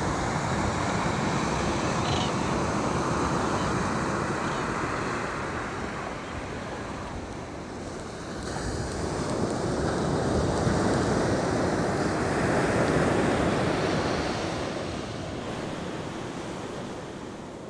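Ocean surf washing in and out in slow swells, two louder surges, then easing off near the end.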